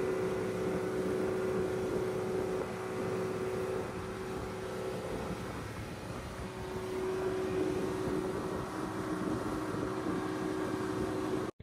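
Fishing boat's engine running steadily under way, a held drone over the rushing of water and wind from the wake. It cuts off abruptly just before the end.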